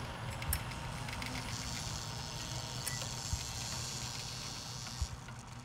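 Motor-driven wooden kinetic sculpture running: a steady low mechanical hum with a faint hiss and a few soft knocks, fading out near the end.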